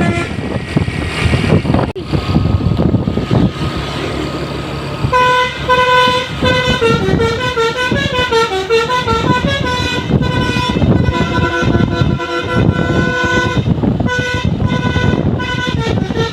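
A bus's basuri-style telolet horn, a multi-tone musical air horn, plays a tune in several phrases with short breaks over the bus's engine and road noise. The horn comes in about five seconds in, after a stretch of engine and traffic noise alone.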